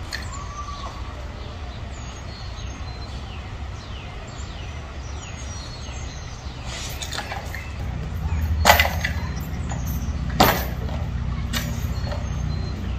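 Bungee ball being kicked by an Asian elephant and knocking about on its elastic cord: two sharp knocks in the second half, about two seconds apart, with a lighter one soon after, over a steady low rumble.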